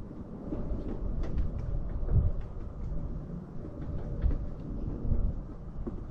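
Low rumbling noise with scattered faint clicks and knocks as the washer fluid hose is pushed onto the new plastic reservoir.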